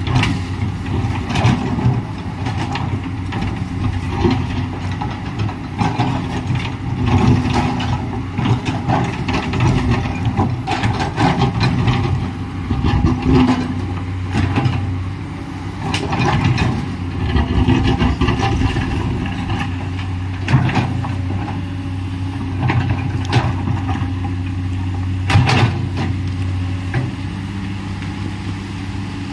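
Komatsu PC210LC excavator's diesel engine running while the machine works, its load rising and falling, with occasional sharp knocks and clanks.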